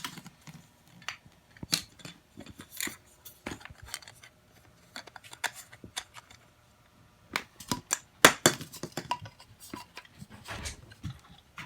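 Small hard items being handled and set down: an irregular string of clicks, taps and light clinks, loudest a little after eight seconds in.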